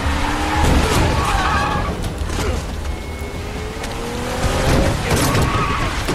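Movie soundtrack of a car skidding, with tyres squealing and the engine running up in pitch, over music. It is the sound of a car striking a man in the street.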